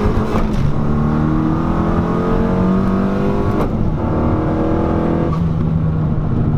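Honda Civic Si's 1.5-litre turbocharged four-cylinder engine pulling hard under acceleration, its note climbing and then dropping back at each upshift, several times in a row.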